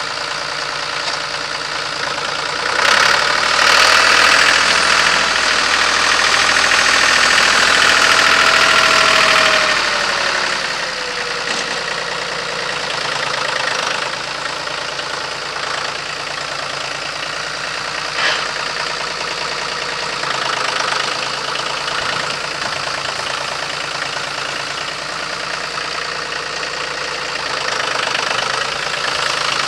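1994 John Deere 5200 tractor's three-cylinder diesel engine running as the tractor is driven. About 3 seconds in it grows louder, with a whining tone that falls in pitch and eases off about 10 seconds in.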